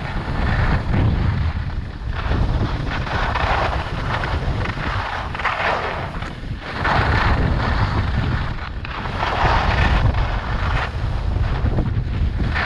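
Skiing down a groomed run: wind rumbling on the microphone, with the hiss of Rossignol Experience 84 AI ski edges scraping packed snow, swelling with each turn about every two seconds.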